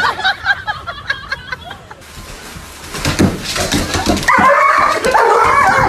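A dog barking and yelping, louder and more continuous from about four seconds in, with a person's voice mixed in.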